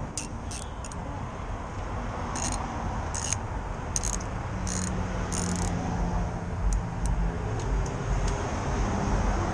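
Street traffic: a steady low rumble from passing vehicles, growing slowly louder, with a car engine's hum held for a couple of seconds in the middle. A few light metallic clicks come over it.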